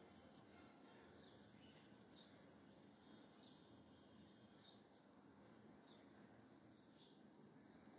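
Near silence: faint outdoor ambience, a steady high hiss with a few brief, faint high chirps spaced a second or two apart.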